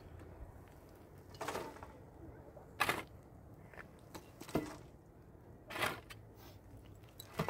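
A series of short, sharp knocks or taps at uneven intervals, four of them plain, roughly one every second and a half.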